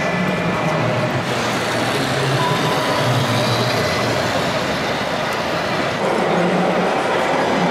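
Steady running noise of radio-controlled model vehicles: an RC tractor pulling a tipper trailer, then an RC crawler excavator. The sound changes about six seconds in.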